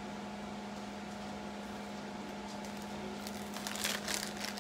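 Plastic zipper freezer bag rustling and crinkling in short bursts as it is handled, in the last second or so, over a steady low hum.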